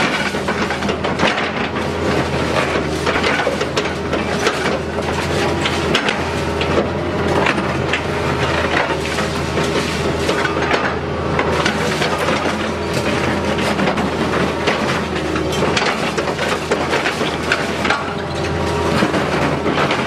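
Hydraulic concrete pulverizer on an excavator crushing concrete rubble, with frequent sharp cracks and crunches of breaking concrete. The excavator's engine hums steadily underneath.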